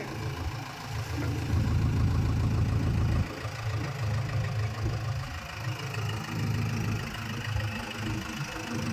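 Heavy diesel engine running steadily with a low rumble. It grows louder for a second or two, then drops back suddenly about three seconds in.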